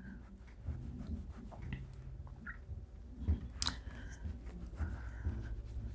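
Faint scratchy strokes and small clicks of a makeup brush blending powder contour on the cheek, with a slightly louder click a little past halfway.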